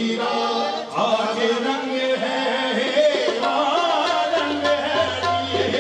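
Sufi devotional music: singing over tabla drumming, with a low steady note coming in about four seconds in.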